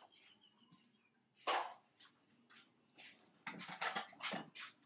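Baby macaque scrabbling on and burrowing its face into a fleece blanket: short rustling scuffs, one about a second and a half in and a quick run of them near the end.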